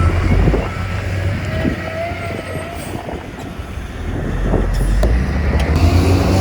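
Heavy diesel engine of earthmoving equipment running with a low drone that eases off about half a second in and builds back up over the last couple of seconds. A faint wavering whine comes in around the middle.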